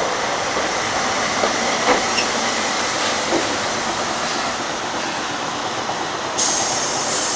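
Iyotetsu Matsuyama city tram, Mo-50 class car 55, running slowly past on street track: a steady rumble of wheels and motors with a few faint clicks. About six and a half seconds in, a sudden high hiss sets in.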